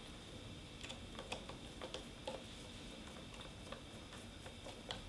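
Countersunk screws being driven by hand with a screwdriver through a clear plastic router jig into the router base: a few faint, scattered small clicks of the driver tip and the screws turning.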